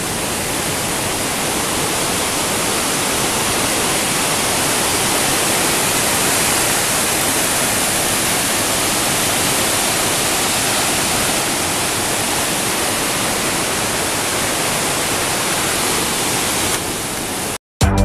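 Mountain waterfall, white water cascading over boulders, giving a loud, steady rush of water. It cuts off suddenly near the end.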